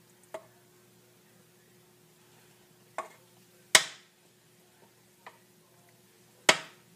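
A metal spoon knocking against a metal muffin tin as batter is scooped in: five sharp clinks with a short ring, the loudest about four seconds in and near the end. A faint steady hum runs underneath.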